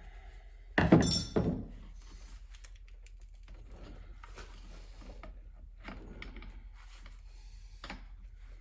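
Metal clunks about a second in as the transmission case and tools are handled on the workbench, then a few faint clicks of tool work.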